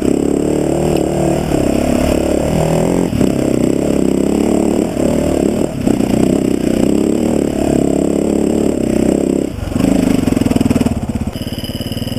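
Dirt bike engine pulling hard up a steep dirt trail, the revs rising and falling with the throttle, then settling to a steadier, lower note near the end as the bike slows and stops.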